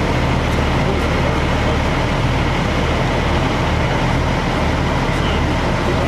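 Fire engine's diesel engine running steadily close by: a constant low drone under an even wash of noise.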